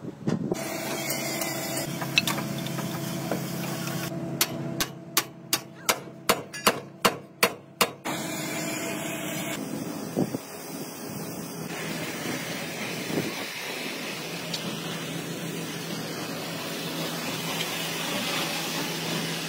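An engine running steadily, with a quick run of about nine sharp knocks, about three a second, a few seconds in; after an edit, a steady engine hum with background noise.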